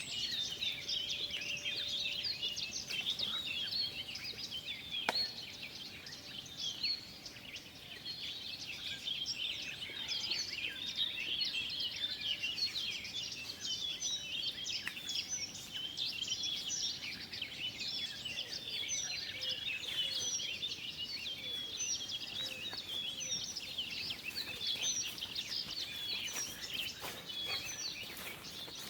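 A chorus of many small songbirds singing at once: a dense, unbroken chatter of short chirps and trills.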